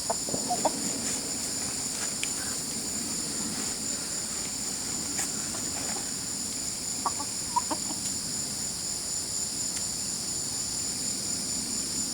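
Steady high-pitched drone of insects, with a few short animal calls about half a second in and again around seven seconds in, and a few faint clicks.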